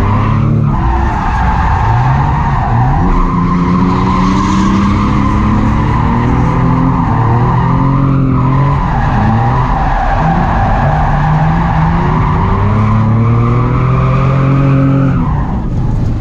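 Nissan 350Z drift car's engine revving up and down, with its tires squealing through long slides; the revs drop and climb again a few times.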